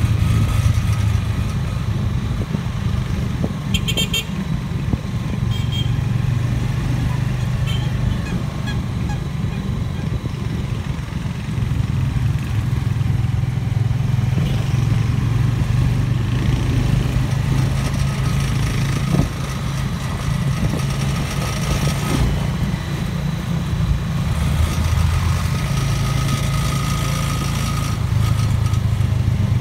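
Motorcycle engine of a Philippine tricycle (motorcycle with sidecar) running steadily while riding along a street, heard from inside the sidecar, with road noise. A short horn beep sounds about four seconds in.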